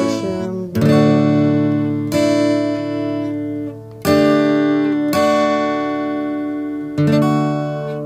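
Washburn acoustic guitar strummed, chords ringing out and decaying between fresh strums every one to two seconds, about six in all.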